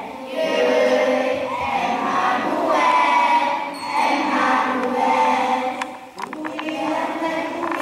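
A group of children singing a Christmas song together, in long held phrases with a short break about six seconds in.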